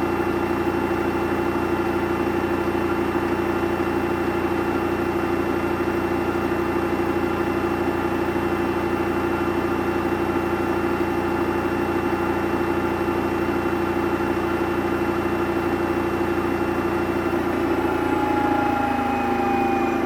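Samsung washing machine spinning at speed: a steady motor whine over a drum hum. Near the end the pitch starts to fall as the drum begins to slow.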